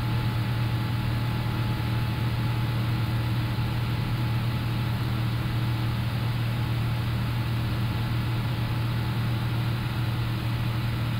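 Steady flight-deck noise of an Airbus A350-1000 in climb: a deep, constant hum under a hiss of airflow and ventilation, with a faint steady tone held throughout.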